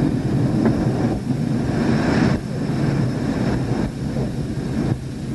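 Cockpit noise of a MiG-29 fighter in flight: the steady rumble of its two Klimov RD-33 turbofan engines and the rush of air over the canopy, heard from inside the cockpit.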